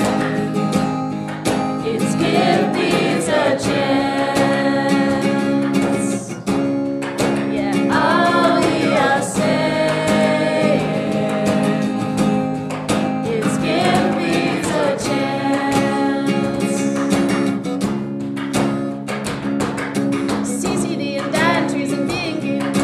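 Background song: a group of students singing together to strummed acoustic guitar, recorded in a classroom.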